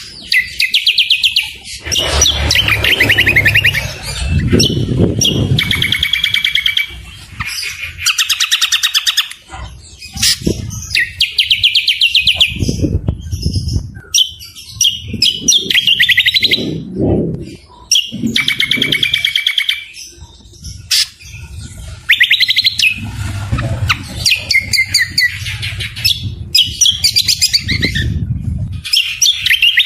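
Songbirds singing loud, fast rattling trills and chattering phrases in bursts of a second or two, with short breaks between them.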